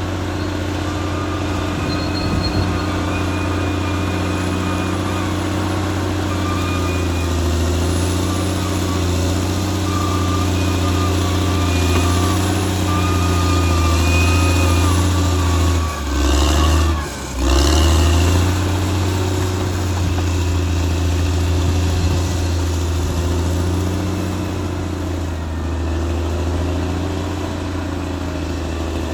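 Caterpillar D6R XL bulldozer's diesel engine running steadily at work, with a faint wavering whine above it. The engine sound dips and breaks off briefly about halfway, then picks up again.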